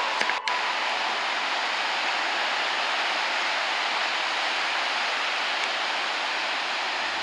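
Steady rushing noise of ocean surf on a stormy sea, with one brief dropout about half a second in.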